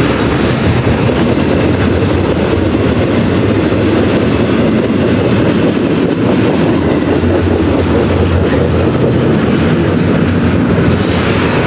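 Freight train of double-stack container well cars rolling past at close range: a loud, steady noise of steel wheels running on the rails.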